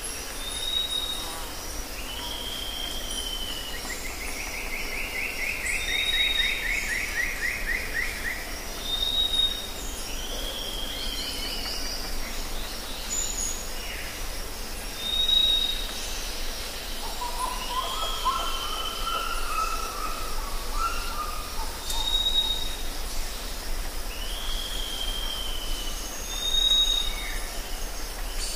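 Several birds calling over a steady background hiss of forest ambience. A short high whistle repeats every three seconds or so, often followed by a slurred falling call. A rapid descending trill comes a few seconds in, and lower warbling notes come about two-thirds of the way through.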